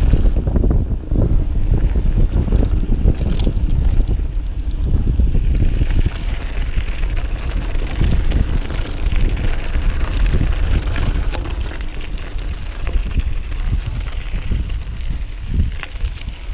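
Wind buffeting the microphone of a camera riding on a mountain bike going downhill over dirt and gravel, with short knocks and rattles from bumps in the trail. It eases off somewhat in the second half as the bike slows.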